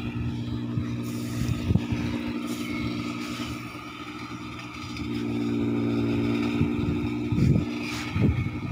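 Rice combine harvester engine running steadily, a hum of several tones. It dips about four seconds in and swells back up. A few low thumps come near the end.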